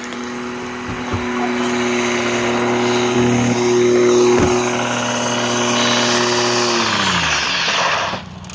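Ford Ranger 3.0 pickup's engine held at high revs at a steady pitch during a burnout, with the hiss of the spinning rear tyres. About seven seconds in the revs fall away and the sound dies down.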